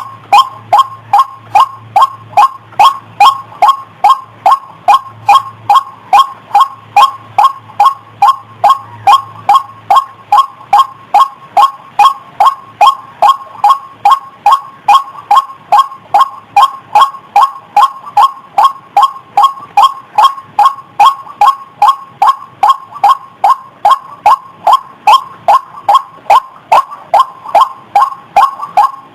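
White-breasted waterhen (ruak-ruak) call played as a bird lure: an unbroken, even series of short, loud 'wak' notes, a little over two a second.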